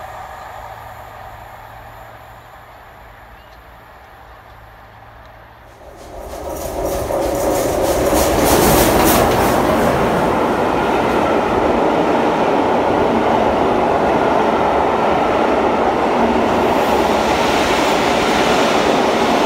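The noise of a train dies away. Then, about six seconds in, the sound jumps to a loud steady rumble and wheel clatter of passenger coaches rolling past close by along a station platform.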